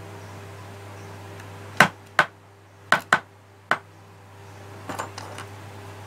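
Five sharp clicks in quick succession, followed by a few softer ticks near the end, over a steady low electrical hum.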